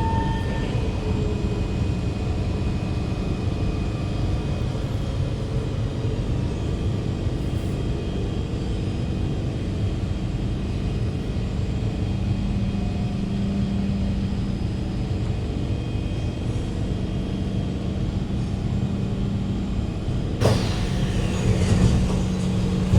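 Kawasaki C151 metro train running at speed, heard inside the carriage: a steady rumble of wheels on track with a low motor hum. About 20 seconds in, the sound changes abruptly and the noise grows louder.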